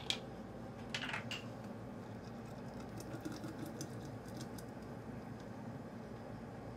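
Soda water fizzing in a glass blender jar of blended dragon fruit juice: a faint, light crackle of bursting bubbles.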